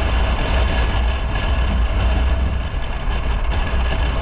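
Motorcycle riding along a road: a steady, unbroken mix of engine, tyre and wind noise with a heavy low rumble.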